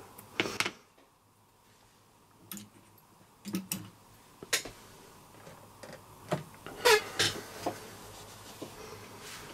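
Irregular small clicks and taps of hands handling small parts and tools at a workbench, about eight in all, the loudest about half a second in and near seven seconds.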